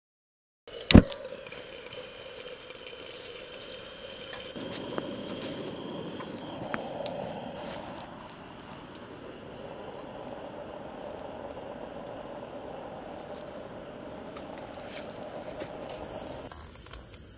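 A single sharp click about a second in, then a campfire burning: scattered faint crackles over a steady high hiss.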